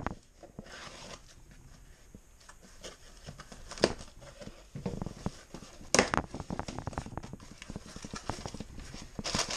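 A cardboard box being opened: a knife slitting the packing tape, then the flaps pulled open, with rustling and scraping cardboard and a few sharp knocks.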